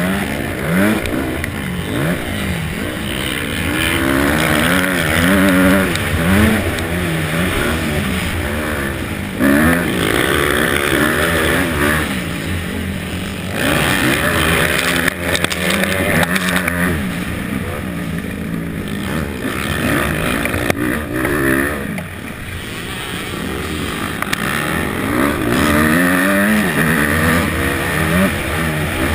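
250 cc motocross bike engine revving hard under race load, its pitch climbing and dropping again and again as the rider accelerates, shifts and backs off for corners.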